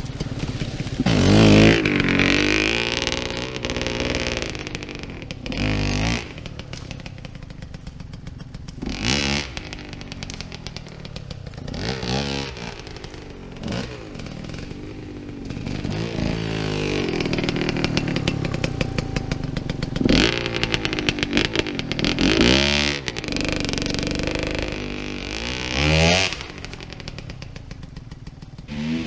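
Enduro motorcycle engine revving in repeated throttle bursts, its pitch rising and falling again and again as the rider works the throttle over rough, muddy ground.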